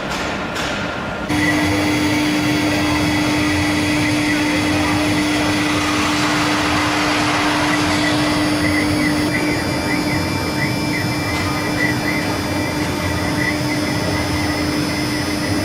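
CNC router spindle running steadily with a high whine and a hum while its bit carves a wooden cylinder turned on the rotary axis. The sound starts abruptly after a second of regular ticking, and its pitch lines shift about nine seconds in.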